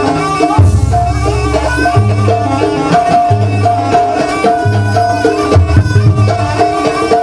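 Live Jaranan Buto music from a Javanese traditional ensemble: a repeating melody over hand drumming, with a deep low beat that booms roughly every second and a half.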